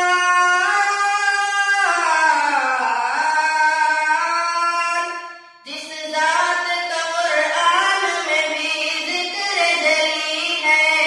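A boy singing a naat solo and unaccompanied, in long held notes that slide and waver between pitches, breaking off for a breath about halfway through.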